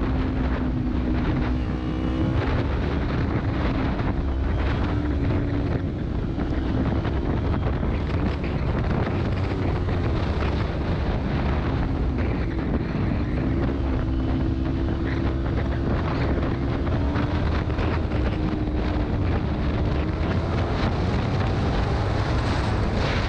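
Motorcycle engine running at low road speed, its pitch dipping about halfway through and rising again near the end, with wind rumbling on the helmet-camera microphone.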